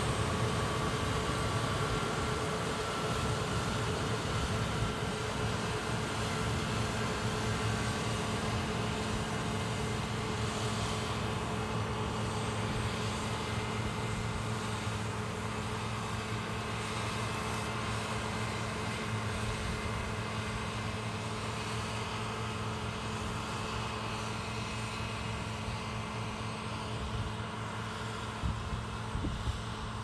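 John Deere combine harvesting oats: the engine and threshing machinery run with a steady droning hum that fades slowly as the machine moves away.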